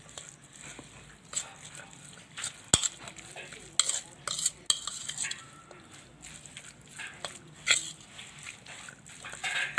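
A utensil stirring a thick chicken salad filling in a bowl: irregular scrapes and clinks against the bowl, with one sharp click about three seconds in.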